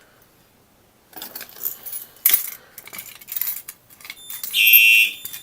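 Metal clicks and key rattles as a fire alarm pull station is handled and closed up. About four and a half seconds in, a Simplex 4903-9236 horn starts sounding, a loud high pulsing electronic horn, as the alarm reactivates.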